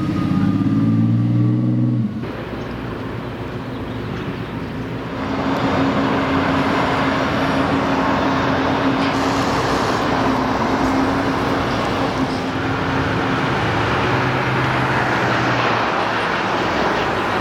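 Road vehicle noise: a low engine hum for the first couple of seconds, then an abrupt change to a steady rush of engine and tyre noise with a low hum running under it.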